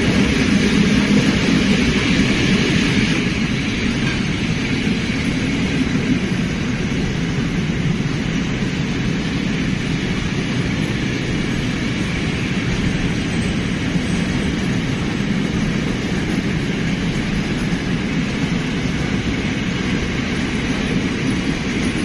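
Freight train of blue open-top gondola wagons rolling past: a steady rumble of wheels on rail, a little louder for the first few seconds.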